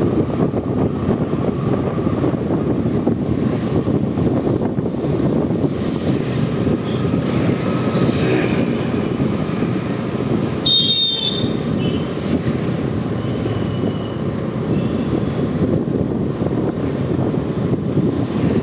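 Steady rushing wind noise on the microphone mixed with engine and road noise while riding through city traffic. There is one short high-pitched sound about eleven seconds in.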